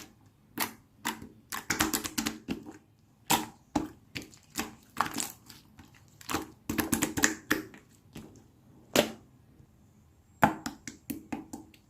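Crunchy slime being squeezed and pressed by hand, crackling and popping in short clusters with brief pauses between.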